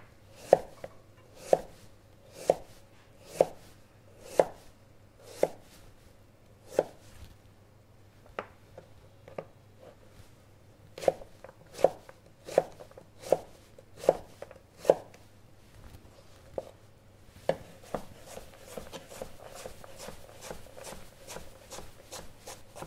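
Chef's knife cutting celeriac on a plastic cutting board: separate knocks about once a second as slices and sticks are cut, then, over the last few seconds, quicker and lighter chopping of about three strokes a second as the sticks are diced.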